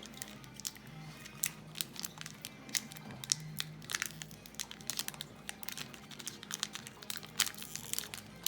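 Foil trading-card pack wrappers crinkling as packs are handled, many short sharp crackles in quick succession, over quiet background music.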